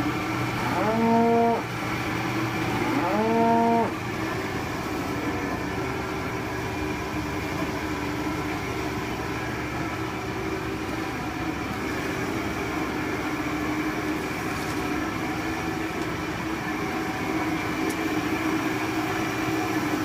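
Cattle mooing twice in the first four seconds, each moo rising in pitch and then held. A steady mechanical hum runs underneath throughout.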